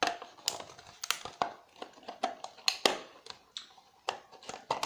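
Hard plastic casing of a cordless phone being pried and cracked apart: a run of irregular sharp clicks and snaps, the loudest near the start and twice close together just before the three-second mark.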